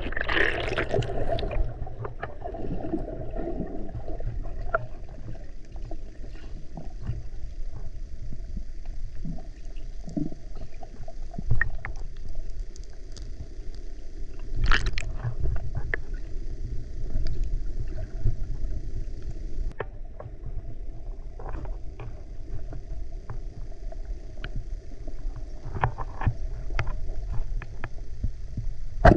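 Water sloshing and gurgling over a steady low rumble, with scattered small clicks and knocks.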